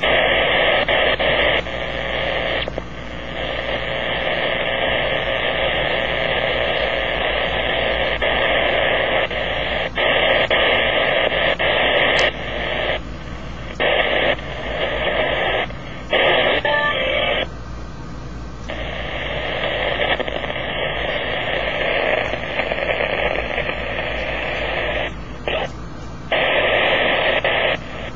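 Power-line interference heard as a loud, steady static hiss through a Kenwood HF transceiver's speaker in AM mode. Its level drops abruptly several times as the radio is switched between bands.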